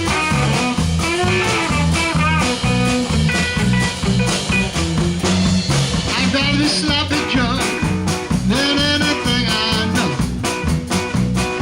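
Live blues band playing at a steady beat, with guitar, bass and drums.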